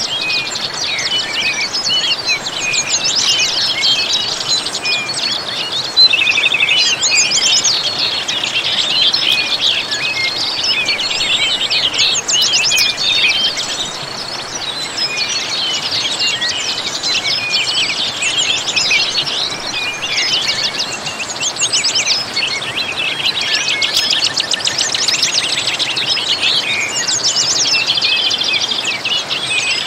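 A chorus of small songbirds chirping and trilling continuously, many calls overlapping, over the steady rush of a waterfall.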